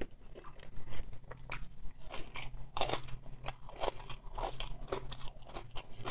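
A person chewing a mouthful of crunchy shredded cabbage salad close to the microphone, with irregular crunches and wet mouth sounds.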